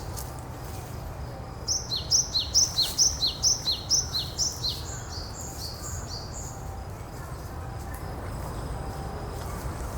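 A songbird singing a fast series of about a dozen repeated two-part notes, each a high note followed by a quick downward slur, fading toward the end, over a low steady background rumble.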